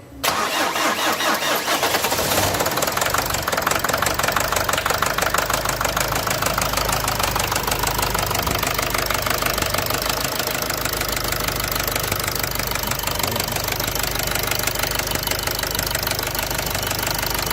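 Nissan Qashqai 2.0 dCi four-cylinder diesel engine running with a rapid, steady knock, the sound of damaged connecting-rod bearings. The engine comes in suddenly right at the start.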